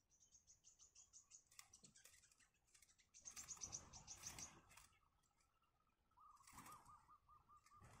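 Faint, thin, high-pitched peeping of nestling birds in short rapid runs, with the loudest run about halfway through, mixed with rustling as the chicks shift in their grass nest. Near the end comes a lower series of quick, evenly repeated notes from a bird.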